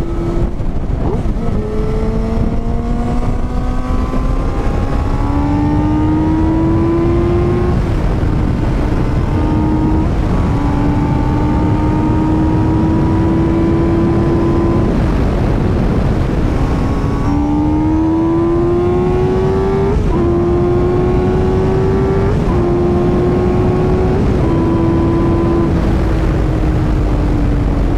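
Motorcycle engine pulling hard, its note climbing in pitch and dropping back at each gear change, several times over, then holding steady and easing off slightly near the end, over heavy wind rush.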